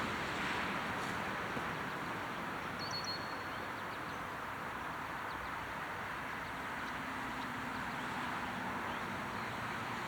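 Steady outdoor background noise, like distant road traffic, with a brief high chirp about three seconds in; the siren is not yet sounding.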